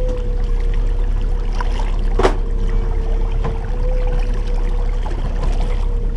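Lake water swishing and splashing against a hand and a trout held beside a moving boat, over the steady hum and rumble of the boat's motor. A single sharp knock about two seconds in.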